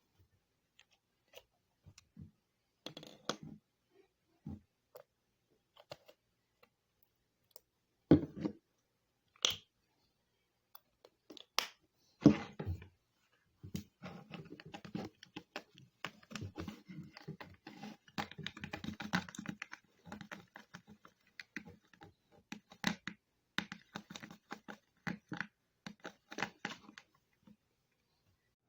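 Slime being made and handled: scattered clicks, taps and scrapes, then a long stretch of dense, irregular crackly clicking and squishing from about halfway in.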